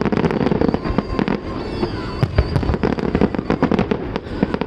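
Fireworks display going off in rapid succession: many sharp bangs and pops overlapping irregularly over a constant low rumble of more distant bursts.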